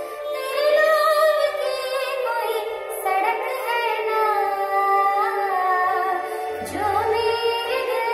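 A woman singing a Hindi film song into a handheld karaoke microphone, holding long notes with gliding, ornamented pitch bends.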